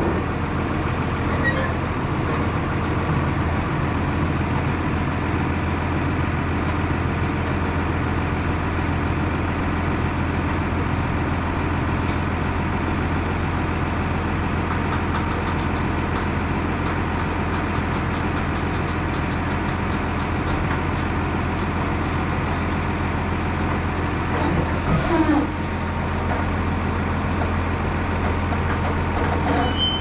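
Large diesel engine of harvest farm machinery running steadily, a constant low drone.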